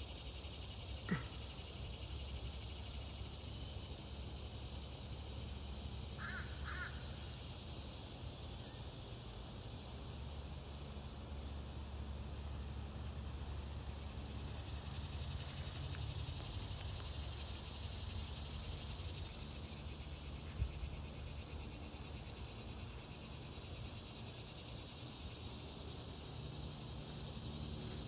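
Crows cawing at a perched hawk, with a pair of short caws about six seconds in, over a steady high-pitched insect hum.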